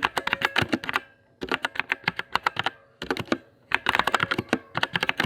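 Mechanical keyboard with Outemu Red linear switches (Tecware Phantom TKL) being typed on quickly, in three bursts of rapid key clicks with short pauses between them.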